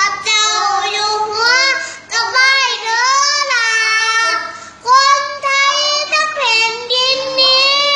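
A young boy singing solo, unaccompanied, in long phrases with sliding and held notes and short breaks between them.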